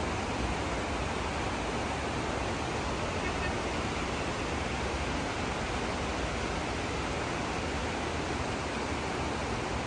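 Heavy rain pouring down, a dense, steady hiss that does not let up.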